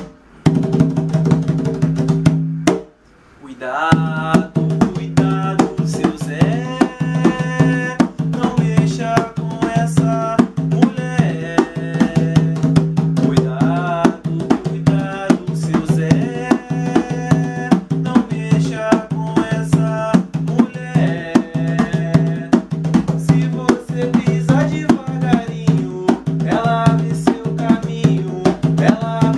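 Recorded Umbanda ponto music: hand drums keep a steady rhythm with a melody line over it. The music resumes after a brief break about three seconds in.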